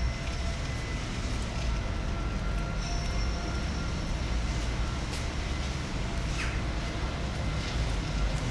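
Steady road traffic noise: the even rumble and hiss of vehicles moving along the street, with a few faint thin whining tones over it.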